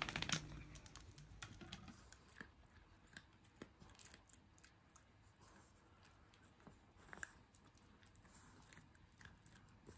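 Faint, scattered small clicks and rustles of a Jack Russell Terrier puppy gnawing on a fleece blanket.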